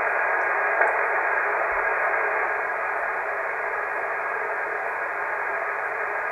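Amateur HF transceiver's speaker giving a steady hiss of band noise on the 20-metre band at 14.295 MHz, narrowed by the single-sideband receive filter, with no station heard: the receiver is open and waiting for a reply that does not come.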